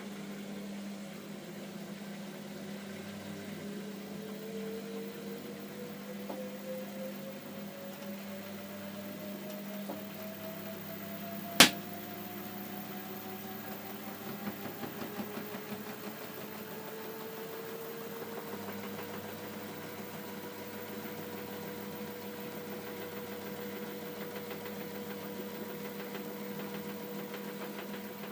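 LG F12A8CDP direct-drive washing machine running, its motor whine rising slowly in pitch as the drum speeds up, then holding steady, over a steady hum. One sharp, loud knock about twelve seconds in.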